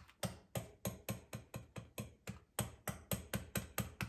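Metal fork docking a sheet of puff pastry on a worktop: quick, even stabbing taps, about four a second.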